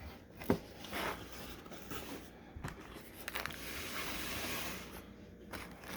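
A car stereo's box and packing being handled and opened: a few light knocks and taps, with a scraping rustle lasting about a second a little past the middle.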